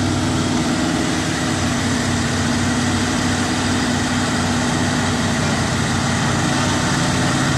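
Heavy diesel engine running steadily, holding an even pitch with a low drone.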